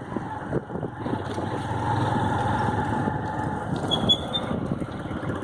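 Motor vehicle running on the road: a steady engine and road noise, with a faint engine tone that holds for a couple of seconds about a second in.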